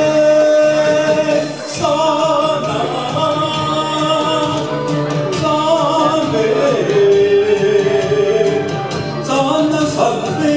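A man singing a Mandarin ballad into a handheld microphone over instrumental accompaniment, holding long notes.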